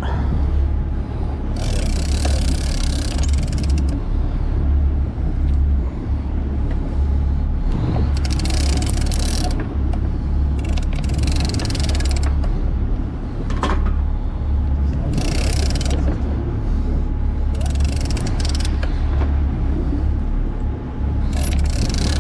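Steady low rumble of a sport-fishing boat's engine, with rushes of hiss from water and wind coming and going every few seconds.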